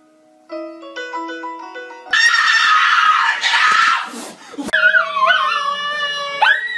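A few soft musical notes, then a loud scream lasting about two and a half seconds, then a small white dog howling along with a man who howls with it, their pitches gliding up and down.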